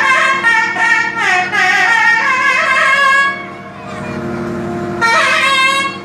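Nadhaswaram, the South Indian double-reed pipe, playing a gliding, heavily ornamented melodic phrase over a steady drone. The melody breaks off about three seconds in, leaving only the drone, and comes back for a short phrase near the end.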